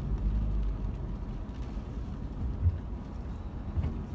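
Car driving slowly, heard from inside the cabin: a steady low engine and road rumble, with two short low thumps, about two and a half and nearly four seconds in.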